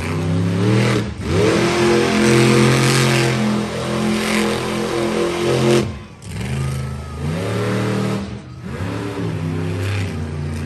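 Monster truck engine revving hard: the pitch climbs and holds high for about four seconds, drops off sharply about six seconds in, then rises again in two shorter revs.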